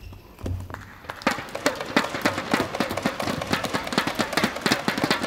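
Many hands clapping, starting about a second in as a dense run of quick, sharp claps.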